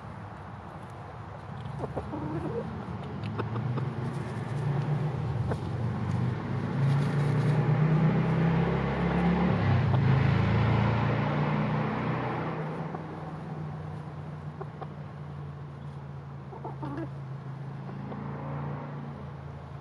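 A passing motor vehicle's engine hum swells up over several seconds, is loudest about halfway through, then fades away. Underneath, a bantam chicken held in a lap gives a few soft, low clucks.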